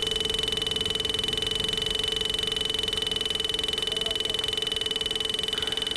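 Bajaj Pulsar running, with a steady hum that pulses quickly and evenly. The hum is not from the engine or a loose nut or bolt but from the horn buzzing faintly while the engine runs, a wiring fault.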